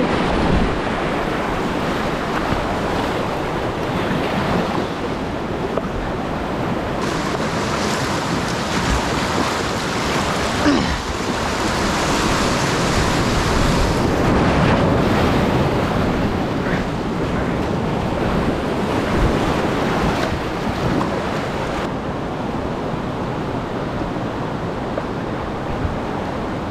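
Whitewater rapids rushing around a kayak in a loud, steady roar of moving water. The hiss is brightest from about a quarter of the way in to about halfway, and eases in the last few seconds as the water calms.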